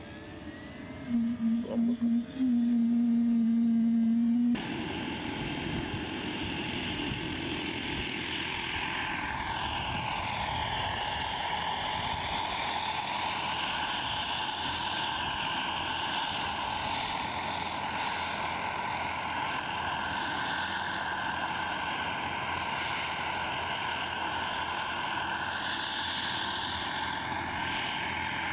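Model gas-turbine engine of a radio-controlled turbine helicopter running at flight power: a steady high whine over rotor noise, its pitch sweeping up and down as the helicopter moves about. For the first few seconds a loud steady low tone cuts in and out a few times, then holds and stops suddenly as the turbine sound begins.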